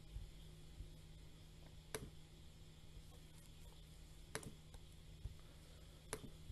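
Computer mouse clicking three times, single sharp clicks roughly two seconds apart, over a faint steady hum.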